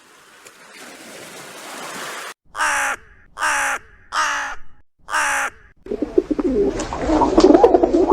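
A bird giving four calls of about half a second each, evenly spaced, after a rising hiss; near the end a louder jumbled noise takes over.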